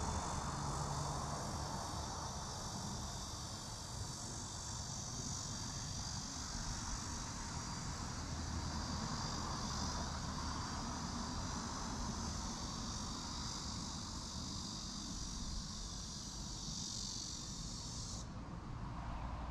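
Insects buzzing in a steady high-pitched chorus that cuts off suddenly near the end, over a continuous low rumble.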